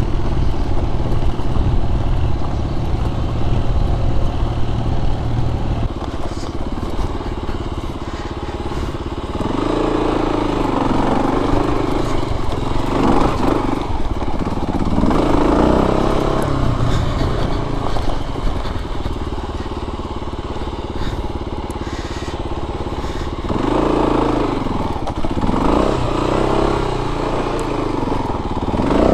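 Kawasaki KLR250 dual-sport motorcycle's single-cylinder four-stroke engine running under way on a dirt trail. It holds steady at first, then the revs rise and fall repeatedly as the throttle is worked over rough, rocky ground, in two spells midway and near the end.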